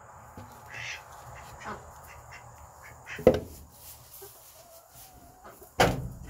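Ducks quacking in short scattered calls, with a louder sharp knock just before the end.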